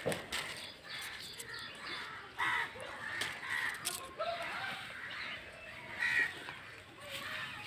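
Crows cawing several times, with short calls scattered through the few seconds.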